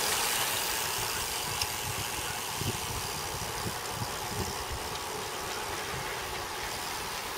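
Wind rushing over the microphone of a camera mounted on a road bike during a fast downhill, with the low rumble of the buffeting and tyres on asphalt, and a few small clicks and rattles from the shaking mount.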